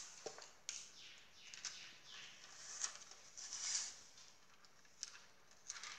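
Faint rustling and crinkling of a clear plastic adhesive transfer sheet carrying hotfix rhinestones as it is peeled and handled, with a few light clicks.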